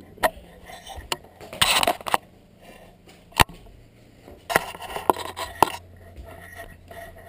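Scattered knocks and clatter of hard objects being handled and set down, with short bouts of scraping and rustling; the sharpest knock comes about three and a half seconds in.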